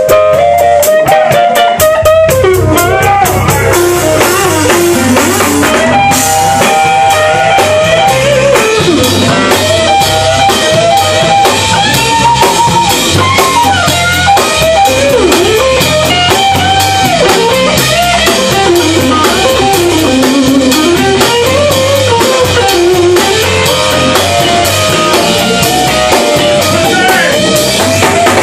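Live blues band playing: an electric guitar takes a lead with bent, sliding notes over a steady drum kit beat.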